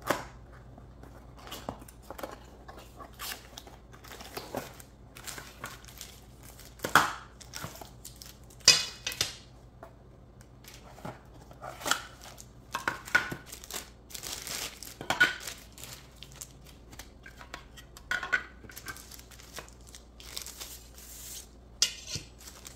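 Paper towel holder being unpacked by hand: the cardboard box and plastic wrappings rustle and crinkle, with irregular clacks as its plastic and metal parts are set down on the countertop.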